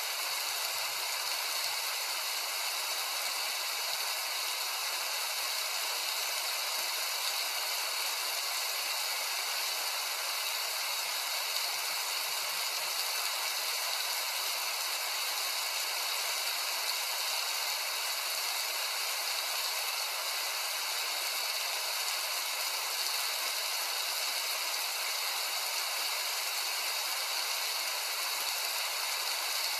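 Heavy rain falling steadily: an even, high hiss that does not change.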